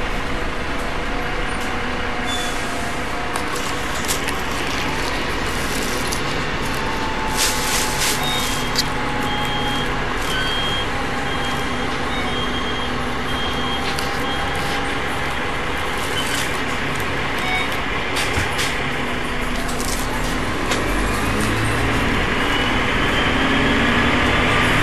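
10.8-litre Cummins ISMe-335 six-cylinder diesel of a Transbus Trident III double-decker bus running steadily, with brief air hisses and a row of about five short beeps in the middle. Near the end a whine rises in pitch and the sound grows louder.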